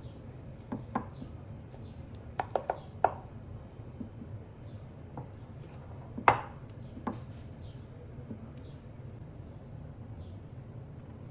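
A utensil knocking and scraping against a bowl and a glass baking dish as thick cream-cheese filling is scooped out: scattered sharp knocks, a quick run of three in the first few seconds and the loudest, ringing one about six seconds in, over a steady low hum.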